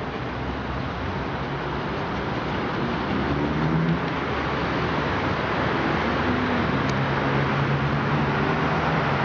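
Steady wash of city traffic noise heard from a height, with a low engine hum coming up about three seconds in and again from about six seconds, slowly growing louder.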